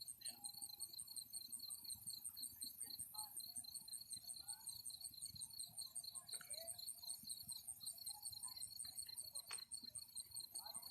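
Crickets chirping in a steady, evenly pulsing chorus.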